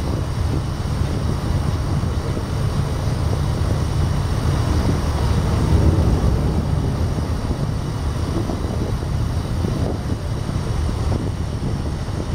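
Passenger motor ship's diesel engine running steadily at low speed while coming in to moor, heard from the deck with wind on the microphone.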